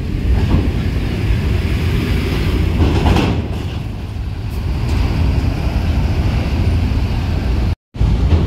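Steady low rumble of large diesel coaches driving slowly onto a ferry, with a louder swell about three seconds in. The sound cuts out for a moment near the end.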